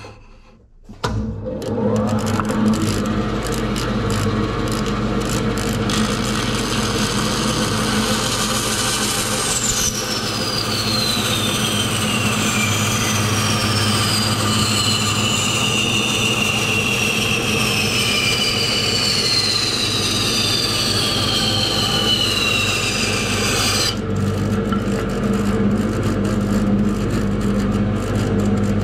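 A bandsaw starts up about a second in and runs with a steady hum while a wooden board is fed through the blade in a straight cut: a dense rasping cut with whining tones sliding down in pitch. The cutting noise stops abruptly near the end as the blade comes clear of the wood, and the saw keeps running.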